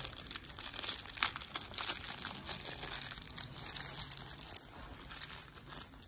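Small plastic bag of screws crinkling as it is handled and opened by hand, with irregular rustles and crackles.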